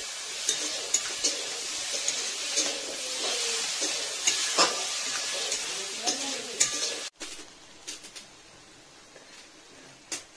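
Cabbage curry sizzling in a hot metal wok while a metal spatula stirs and scrapes through it, with repeated clicks of the spatula against the pan. About seven seconds in, the sizzle and stirring cut off suddenly, leaving only a few faint clinks.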